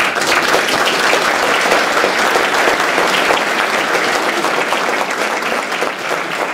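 A seated audience applauding: dense clapping that starts all at once and slowly tapers off.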